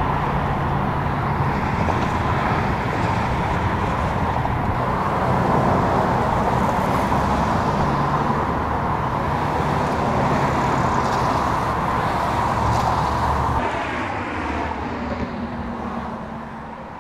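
Steady freeway traffic noise, tyres hissing on wet pavement over a low engine hum. About three-quarters of the way through it drops off and grows quieter, with a vehicle passing.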